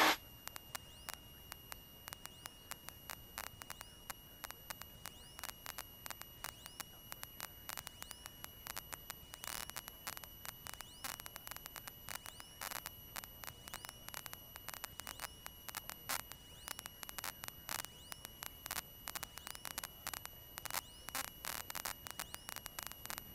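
Faint electrical static on a cockpit intercom audio line: a steady high-pitched whine under a hiss, broken by irregular crackling clicks several times a second.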